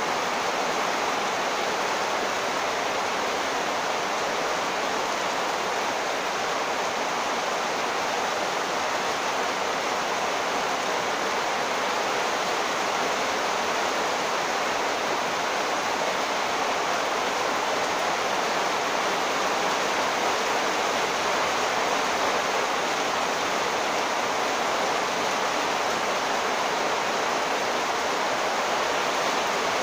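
Heavy monsoon downpour: a steady, unbroken hiss of rain.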